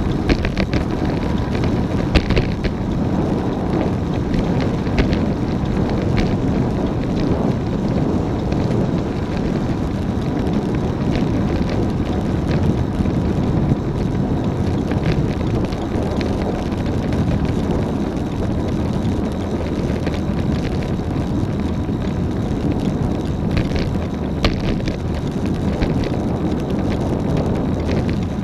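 Road bike ridden along, with steady wind and road noise and irregular sharp clicks from the Mavic Ksyrium Pro Exalith wheels. The rider puts the noise down to his own weight.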